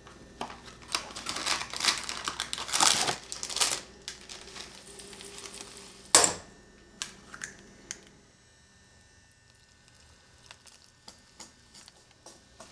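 Cake-mix packaging crinkling and tearing as the box and its inner bag are opened, with a sharp loud rustle about six seconds in. After that, quieter scattered clicks as the dry mix is handled and whisked in a stainless steel bowl.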